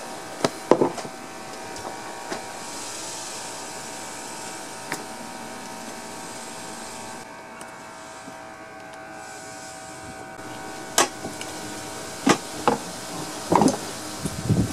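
Clicks and knocks of a small-engine carburetor and hand tools being handled during disassembly, the loudest cluster near the end, over a steady machine hum holding several tones.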